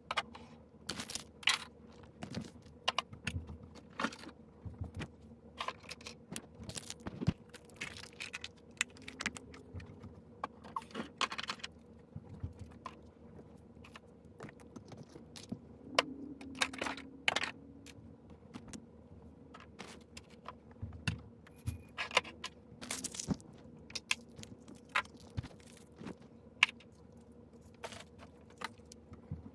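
Small objects being handled on a nightstand while it is tidied: irregular clicks, taps and knocks of items picked up and set down, with rustling of paper receipts.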